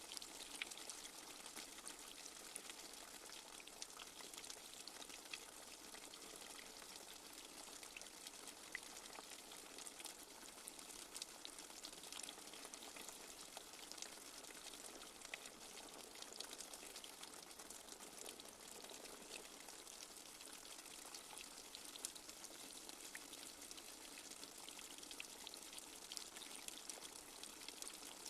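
Light rain falling steadily: a faint, even hiss dotted with many small drop ticks.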